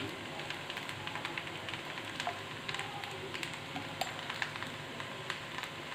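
Boiled vermicelli with vegetables and masala frying in a pan, with ghee just added: a steady sizzle with scattered small crackles.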